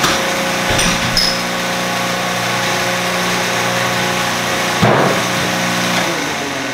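Engine-driven pressure washer running steadily at an even pitch, with a couple of short knocks about a second in and again near the end.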